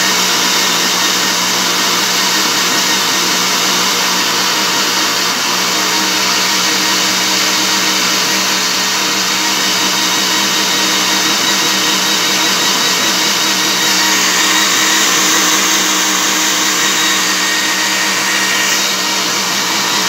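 Mondial Dinâmico 700-watt four-blade blender running steadily at a raised speed, blending papaya, banana and milk into a smoothie.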